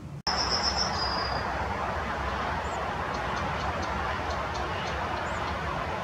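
Steady rushing outdoor background noise that starts after a brief dropout, with a high whistled note for about a second near the start and faint, short high chirps and ticks recurring after it.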